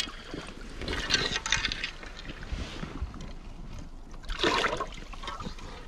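Shallow seawater sloshing and splashing, with two louder splashes: one about a second in and one around four and a half seconds.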